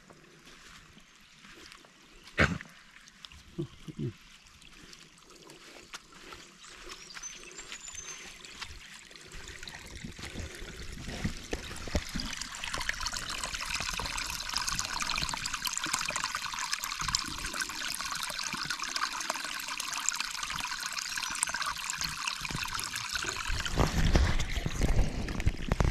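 Water running out of the end of a 1-inch poly pipe siphon and splashing into shallow water: a steady trickle that grows louder about halfway in. The siphon is flowing on its own, draining the flooded yard. A low rumble near the end.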